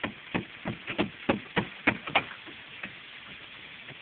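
A hammer driving nails to top-nail a copper-and-lead plumbing vent boot in place on a clay tile roof. It strikes in a quick run of sharp blows, about three a second, that stops a little over two seconds in, with one more blow near the three-second mark.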